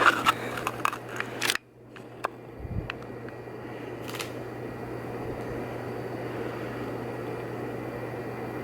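A few clicks and knocks of handling noise, then a sudden cut to a steady low hum with hiss, broken by a dull thump and a couple of faint clicks.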